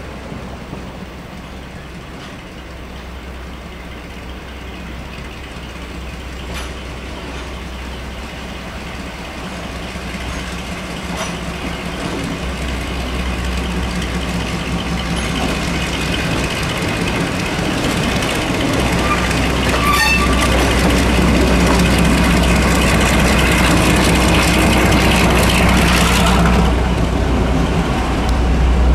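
Class 42 'Warship' diesel-hydraulic locomotive D821 'Greyhound' approaching and passing beneath. The steady drone of its twin Maybach diesel engines grows steadily louder and is loudest over the last third, with its coaches rolling by near the end.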